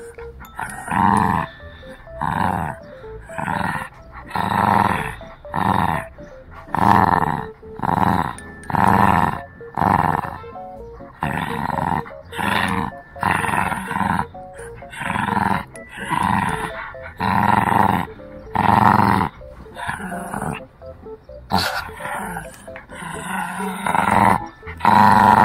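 Shih Tzu puppy growling in repeated bursts, roughly one a second, while biting and pulling on a braided tug toy: play growling during tug-of-war.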